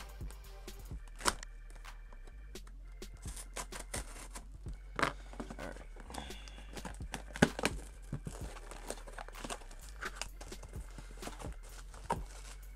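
Cardboard box and packaging being cut, torn open and handled: irregular sharp clicks, knocks, rustles and tearing, with the loudest knocks about a second, five seconds and seven seconds in.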